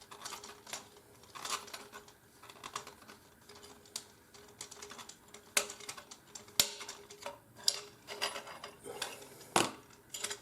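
Irregular small clicks and taps of an Allen wrench turning an M5 screw and handling the metal parts of a spool holder's handle, with a few louder knocks in the second half.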